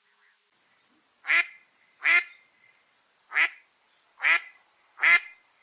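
A duck quacking: five short, loud quacks, the first about a second in, at uneven intervals.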